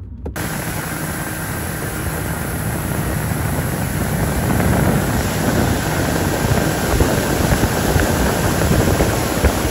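Steady rush of wind and water from a motorboat under way, its engine running underneath, growing slightly louder over the first few seconds.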